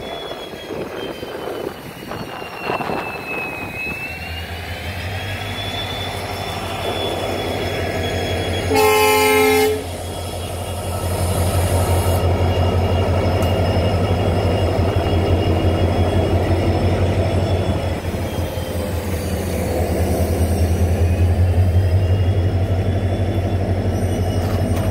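WDG4D diesel-electric locomotive's 16-cylinder two-stroke engine running and building up, with a one-second horn blast about nine seconds in, the loudest sound. The engine then runs steady and loud as the locomotive and its wagons roll past, with a faint whine that rises and falls in pitch.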